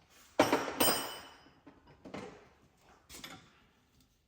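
Metal clanking: two loud, sharp impacts that ring briefly, about half a second apart, then two fainter knocks.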